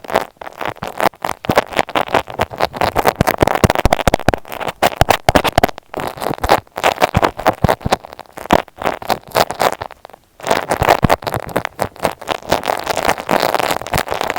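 Close crackling and scratching made right on an earphone microphone as it is rubbed and handled, a dense run of rapid clicks with a brief pause about ten seconds in.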